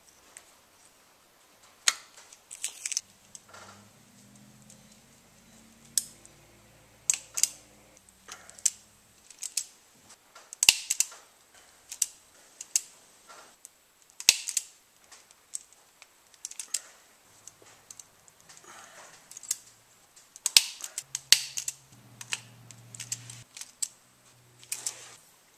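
Hand tools and wiring connectors clicking and snapping during motorcycle wiring work: irregular sharp clicks, some in quick clusters. A low hum comes in twice.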